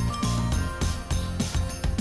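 Background music with a quick, steady beat and bright jingling percussion.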